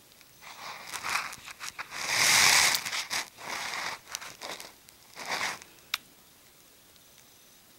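Budgerigar bathing in a small glass dish of water, splashing in a run of noisy bursts that are loudest about two seconds in and die away after about five seconds. A single sharp click follows near six seconds.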